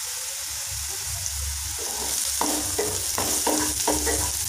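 Sliced onions sizzling in hot mustard oil in a nonstick kadai. From about two seconds in, a wooden spatula stirs them in quick repeated strokes against the pan.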